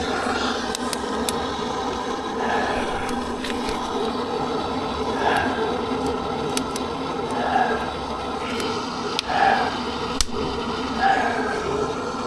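Firewood burning in a wood-fired boiler's firebox: a steady hum with scattered sharp crackling clicks, and four short, higher-pitched sounds about two seconds apart in the second half.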